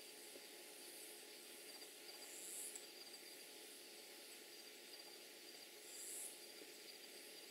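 Near silence of a forest at night: a faint steady hiss with a thin, high insect chirping. Twice there is a brief, higher insect buzz, about two and a half and six seconds in.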